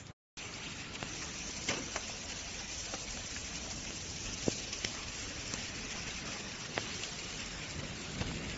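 Rain and hail falling steadily: an even hiss with scattered sharp ticks of hailstones striking.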